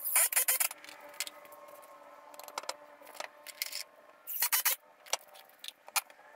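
Short bursts of clattering and sharp clicks from lumber and tools being handled on a concrete floor while a frame of pressure-treated boards is fastened together, loudest at the start and again about four and a half seconds in.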